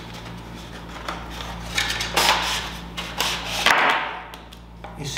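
A Berlinwood fingerboard box being opened: a black inner box slides out of its cardboard sleeve. The sound is a few bursts of cardboard scraping and rustling, with light knocks.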